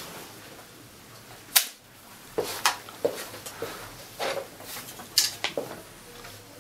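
A film clapperboard snaps shut once, a single sharp clap about a second and a half in. Then come scattered light clicks and clacks of clothes hangers being moved along a metal rail.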